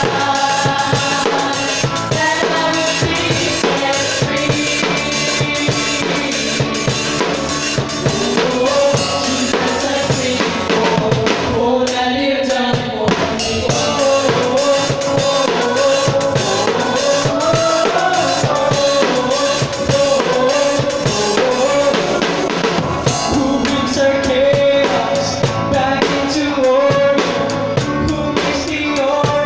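Live band music with a drum kit played close by, steady kick, snare and cymbal strokes, over acoustic guitar, bass guitar and a moving melody line.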